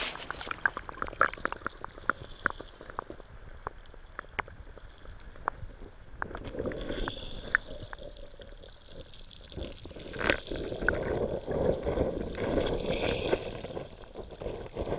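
Water sloshing and gurgling heard through an underwater camera, with many sharp clicks in the first few seconds and one loud click about ten seconds in.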